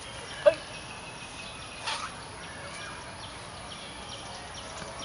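Outdoor park background with birds calling: faint short chirps throughout, a loud short call about half a second in and a weaker sharp one near two seconds.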